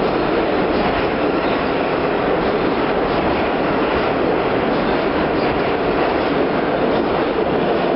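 New York City subway train running through an underground station at speed, a loud steady noise of wheels on rails that carries on without a break.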